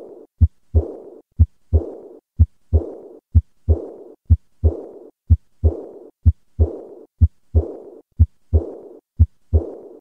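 Heart sounds heard by auscultation at the third left intercostal space, beating steadily at about one beat a second. After each second heart sound comes a blowing, decrescendo diastolic murmur, the sign of aortic insufficiency (aortic regurgitation).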